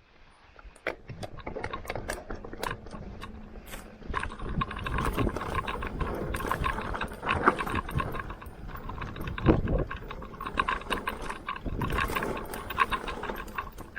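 Mountain bike being ridden down a rough dirt trail: a dense run of rattles, clicks and knocks from the bike and its tyres over the bumps, getting louder about four seconds in.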